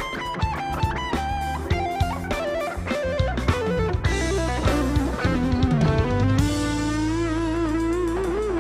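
Live band playing a rock instrumental: an electric guitar plays a lead melody with string bends and vibrato over drums. About three-quarters of the way in it settles into one long held, wavering note.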